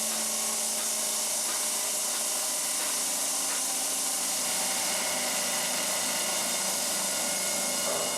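Stone saw cutting a slab of Indiana limestone: a steady high hiss over an unbroken machine whine.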